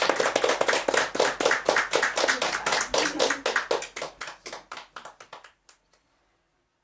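Audience applauding, the clapping thinning and fading away to nothing about five and a half seconds in.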